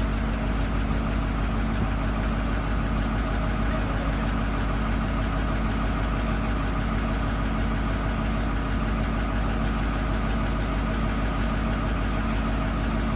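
Heavy recovery crane's diesel engine idling steadily, a constant low drone with no revving.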